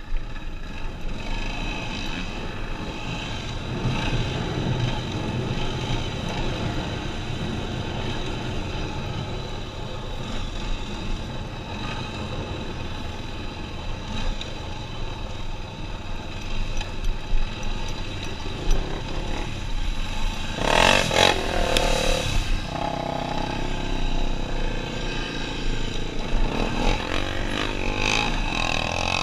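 ATV engine running steadily as the quad is ridden, with a louder, harsher stretch of about two seconds roughly two-thirds of the way through.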